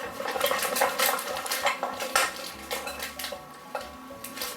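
A utensil clinking and scraping against a bowl as slime ingredients are stirred together, in quick irregular knocks that thin out toward the end.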